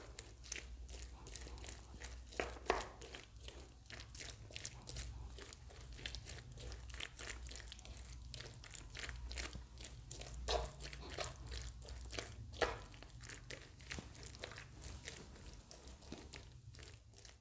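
Thick gram-flour (besan) batter with chopped tomatoes and onions being mixed by hand in a wooden bowl: faint, irregular wet squishes and clicks over a low steady hum.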